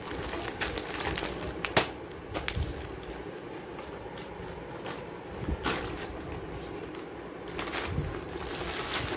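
Plastic grocery packets and small cardboard boxes being handled, crinkling and set down on a concrete floor, with a sharp tap a little under two seconds in.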